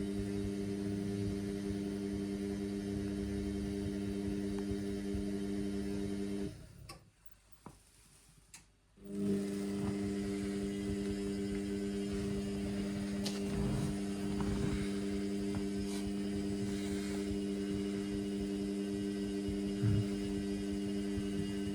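Indesit washing machine's drum motor humming steadily as it turns the drum during the wash. About six seconds in it stops for a couple of seconds, then starts up again.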